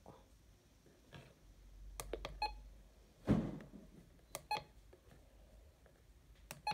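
Short electronic key-press beeps from the RadioShack 12-262 weather radio as its buttons are pressed: a quick cluster about two seconds in, two more past the four-second mark and one near the end. A louder knock of the unit being handled comes a little after three seconds.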